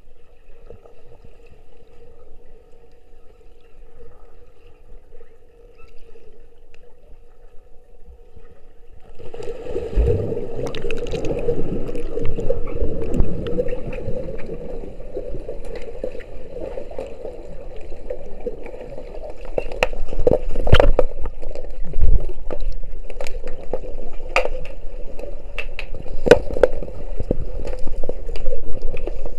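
Pool water heard underwater through an action camera's waterproof housing: a steady hum at first, then from about nine seconds in a loud churning of water and bubbles as underwater hockey players finning around the puck pass the camera, with sharp knocks scattered through it.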